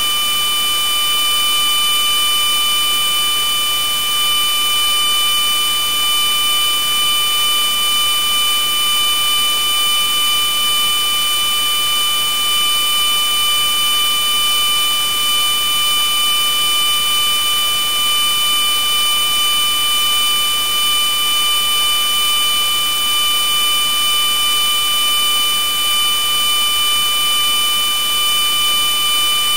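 Loud electronic noise: a steady hiss with several shrill, unchanging tones layered over it, like a harsh buzzer drone that never varies.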